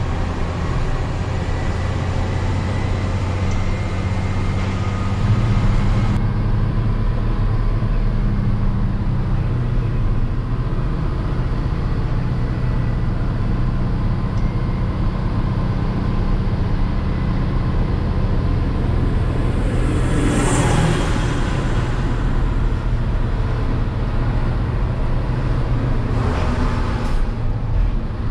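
Hino 500 truck's diesel engine running steadily under way, heard from inside the cab as a low drone with road and tyre noise. Two brief noisy rushes break over it, about two-thirds of the way in and again near the end.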